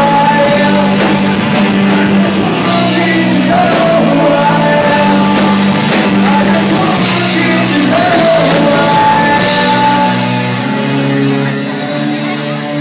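Live rock band playing through a PA in a large hall: electric guitars, bass, drums and a lead singer. About ten seconds in, the cymbals and the low end drop away, leaving held chords as the song winds down.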